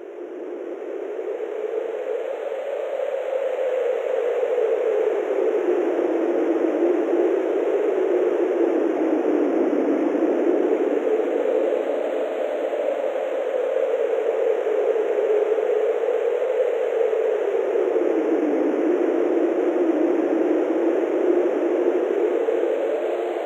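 Wind sound effect: a steady rushing of wind whose pitch slowly rises and falls in long swells. It fades in over the first few seconds.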